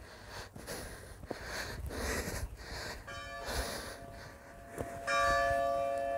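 Someone breathing hard while walking up a path, then church bells ring: one stroke about three seconds in, and a louder, longer ringing from about five seconds in.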